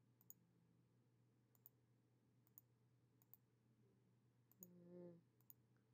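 Near silence with faint computer mouse clicks, about six of them spaced a second or so apart. A brief, faint low hum comes about four and a half seconds in.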